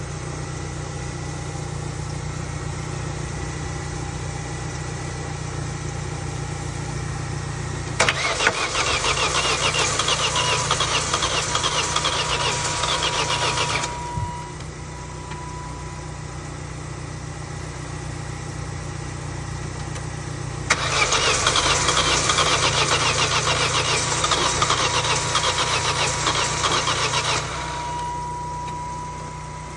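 Vauxhall Corsa engine cranking on its starter motor without firing, in two attempts of about six seconds each that start and stop abruptly, with a steady low hum underneath throughout.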